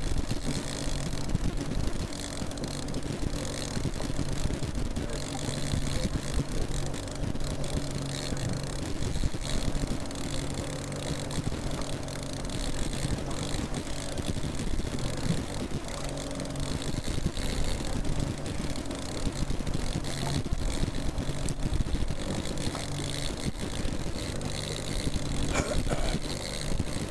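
Boat engine running steadily while trolling, a low even drone.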